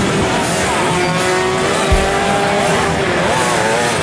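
Two-stroke 125cc underbone race motorcycle engines running and revving, with music playing over them.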